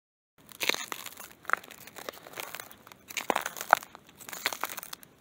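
Footsteps crunching on frozen leaf litter and patchy snow, starting about half a second in, with irregular crackling and crumpling between the steps.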